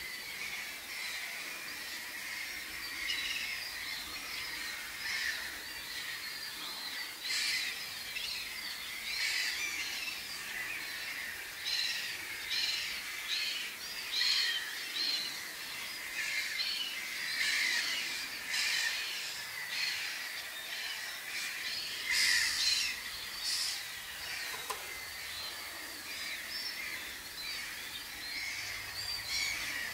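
A flock of wading birds calling: a continuous chatter of many short, overlapping high calls, louder in places, over a steady faint hiss.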